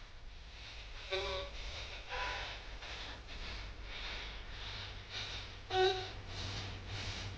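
Parquet floorboards squeaking under load: three short pitched creaks, the loudest near the end, over faint rhythmic shuffling.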